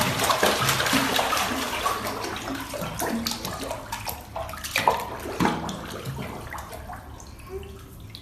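Bathwater splashing and sloshing as a dachshund puppy paddles its legs while held in a bathtub; irregular splashes, busiest in the first few seconds and dying down toward the end.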